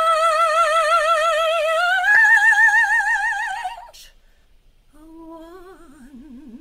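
A woman singing a gospel praise song a cappella. She holds a long note on "change" with strong vibrato, steps up in pitch about two seconds in, and breaks off near four seconds. After a short pause comes a softer, lower note with wide vibrato.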